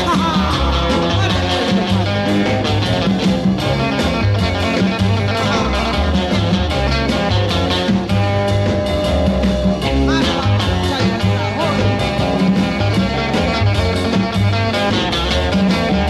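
Loud, upbeat music with guitar over a steady bass beat.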